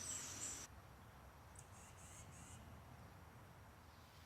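Outdoor background with high chirping cuts off abruptly under a second in, leaving near silence with a few faint high chirps.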